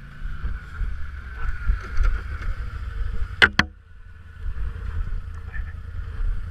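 Off-road vehicle engine running steadily under a low rumble on the microphone, with two sharp clicks in quick succession about halfway through.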